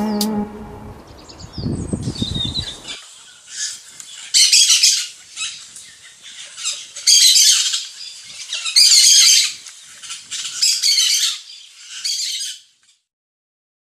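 A small finch singing: short, dense, high twittering phrases of about a second each, repeated every one to two seconds.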